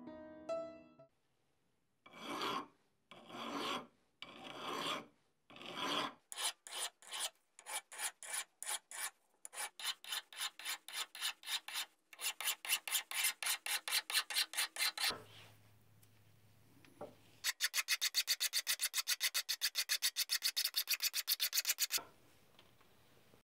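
Steel blade of a Japanese deba knife being hand-polished, scraped back and forth across a wrapped abrasive board in repeated rasping strokes. The strokes start slow, about one a second, then quicken to a rapid run of about four a second, with a short break a little past the middle before the fast strokes resume.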